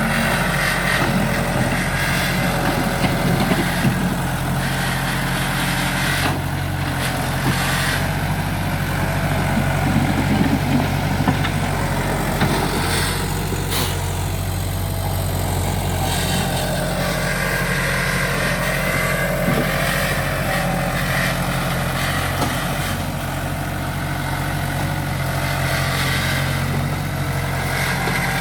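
Case 1845C skid steer's diesel engine running steadily, with a few brief rises in level about three seconds in and again around ten seconds in.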